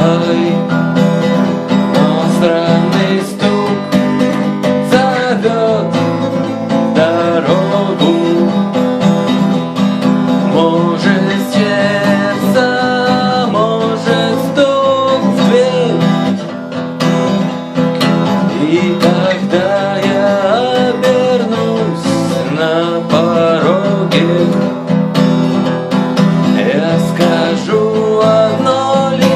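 Guitar music: an instrumental passage with lead notes that bend in pitch over a steady strummed chord accompaniment.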